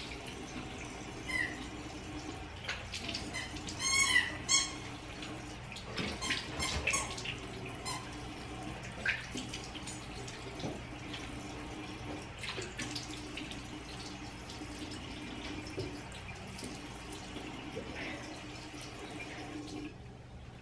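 Tap running into a bathroom sink while hands splash water onto a face to rinse off face wash, with scattered short splashes. The running water stops near the end.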